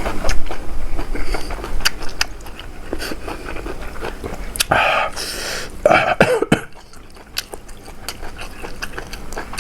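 Close-up mouth eating sounds: chewing with short crunchy clicks, and a cough or throat-clearing sound about five to six seconds in.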